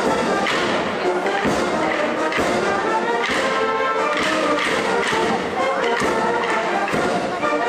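Band music with brass playing and a drum hitting about once a second.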